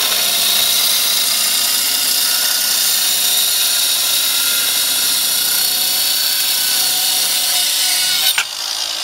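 WESCO 20V cordless mini circular saw running at full speed, its blade cutting into a block of wood: a steady whine over the hiss of the cut. Near the end the sound drops and the motor begins to wind down.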